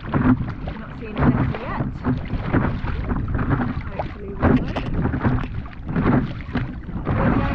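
Double-bladed paddle strokes dipping and splashing into choppy lake water, alternating sides roughly once a second, with wind buffeting the microphone.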